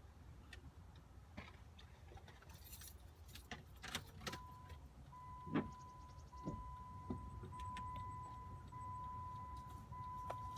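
Keys jangling and clicking as the ignition key is worked, then a Jeep Patriot's dashboard warning chime sounding as a steady high tone in repeated long beeps of about a second each, with a sharp click among them.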